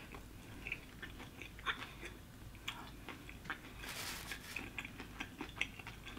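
A person chewing and biting food close to the microphone, with small wet clicks and soft crunches, and a brief louder crackle about four seconds in.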